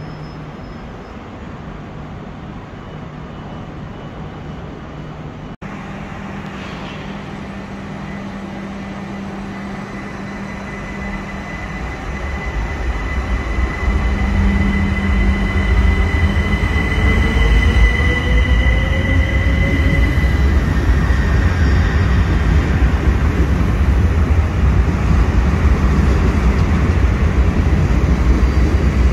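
c2c Class 357 Electrostar electric multiple unit starting away from a terminus platform: the motors whine, rising in pitch, over a wheel rumble that builds and turns loud about fourteen seconds in. Before that, a steady low hum from a train standing at the platform.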